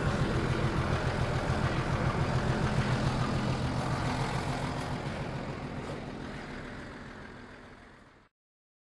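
Tractor diesel engine running steadily with an even low pulse, heard from inside the cab. The sound fades away over the last few seconds, then cuts off abruptly.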